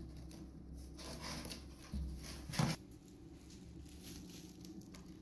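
Faint soft rustling and shuffling of a kitten nursing at a mother cat's belly on a blanket, with a short bump about two and a half seconds in.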